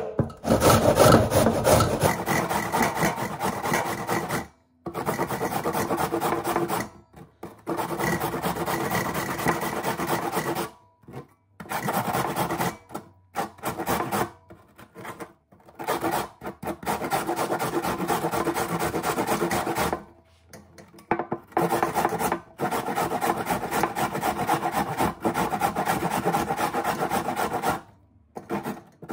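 Raw peeled potato being grated on a stainless steel box grater: quick back-and-forth rasping strokes in runs of a few seconds, broken by short pauses.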